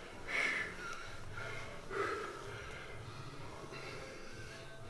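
A man taking two short, forceful breaths, about half a second and two seconds in, as he gets ready to bench press.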